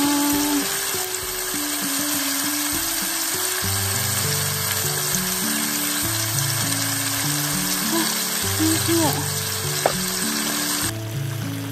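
Ajillo sizzling and bubbling in its oil in an aluminium foil tray over a cassette gas stove, a steady dense hiss that cuts off suddenly near the end. Background music plays underneath.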